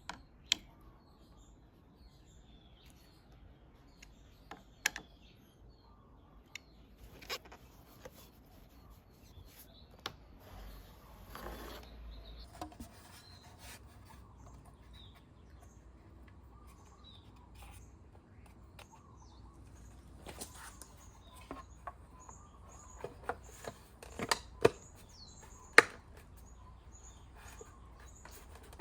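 Hand tools and metal brake parts being handled: scattered sharp clicks and knocks, a brief rubbing scrape about eleven seconds in, and a quicker run of louder clicks and taps near the end.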